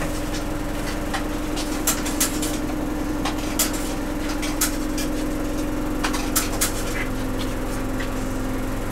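Steady engine hum of a route bus heard from inside the cabin, with a constant low tone. Sharp clicks and rattles come every second or so.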